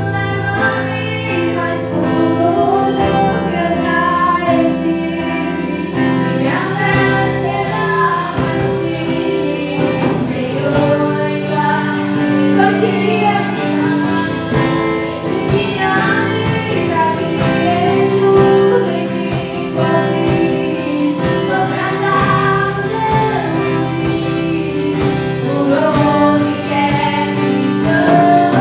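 Worship song with sung vocals over sustained instrumental accompaniment.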